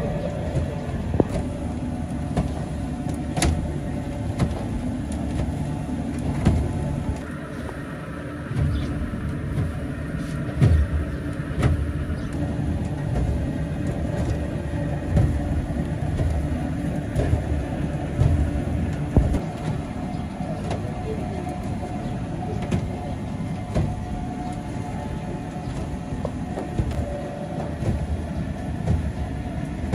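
Perforated drum sieve running as detergent powder showers through it: a steady mechanical rumble and rattle with irregular sharp knocks.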